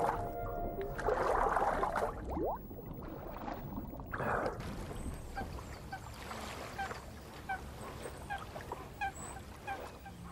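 Water splashing and churning in bursts, then a bird calling over and over in short falling notes, two or three a second.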